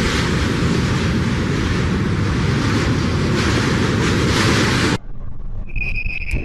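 Strong wind rushing and road noise from a moving vehicle in a gale, loud and even with a deep rumble, swelling in a gust near four seconds. It cuts off suddenly about five seconds in, leaving fainter wind with a brief high steady tone.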